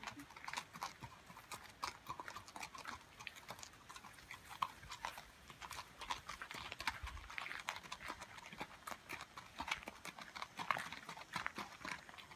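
Horse's hooves walking on gravel: a steady run of irregular crunching steps.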